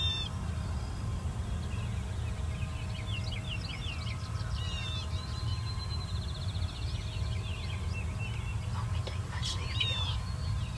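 Several songbirds chirping, with a high buzzy trill about six seconds in, over a steady low rumble.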